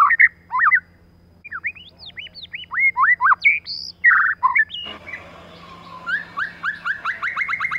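White-rumped shama singing: loud, varied whistled phrases of sliding notes. About five seconds in, a run of short repeated notes begins, speeding up into a fast trill, over a steady hiss.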